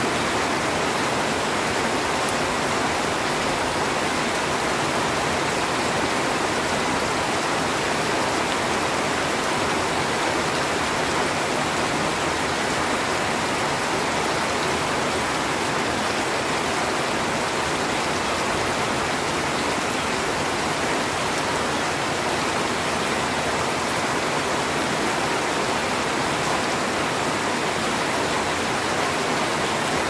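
Heavy rain falling steadily on leafy trees and plants: a dense, even hiss that keeps the same level throughout.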